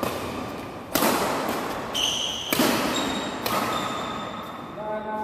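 Badminton rackets striking a shuttlecock in a rally: four sharp, echoing cracks in under four seconds, with a brief high squeak about two seconds in.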